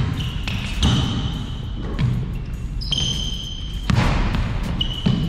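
A basketball being dribbled on a hard court, about one bounce a second, with short high squeaks of sneakers on the floor between bounces.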